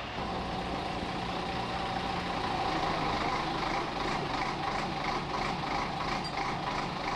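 Mobile truck crane's diesel engine running steadily under load while hoisting a truck, with a steady high whine over the engine.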